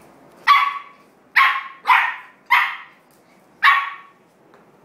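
Shetland sheepdog puppy barking five times in short, sharp, high yaps, play-barking at a cat it is squaring up to.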